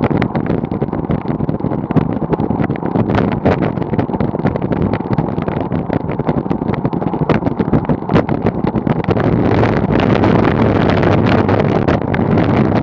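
Bicycle tyres rolling over a rough dirt road, heard through a bike-mounted camera: a steady rumble and hiss with frequent rattling clicks from bumps, mixed with wind on the microphone. The rumble thickens near the end as the surface turns to loose gravel.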